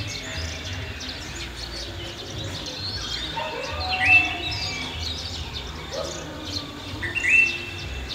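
Several birds chirping and calling together in a rural ambience. The loudest is a bird call that sweeps up and levels off into a short held whistle, heard twice, near the middle and near the end. A low background rumble runs underneath.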